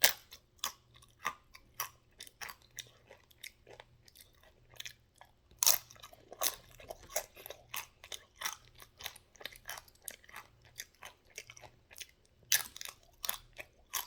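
A person chewing a mouthful of taco close to the microphone: a steady run of crunching chewing clicks, a few every second. Louder ones come at the start, about six seconds in, and near the end.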